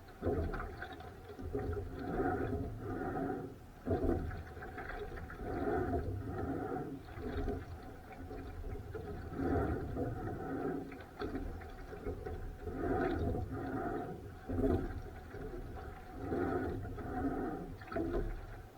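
Rowing boat underway in strong wind: water sloshing and rushing in a repeating rhythm with the oar strokes, over a steady low rumble of wind on the microphone.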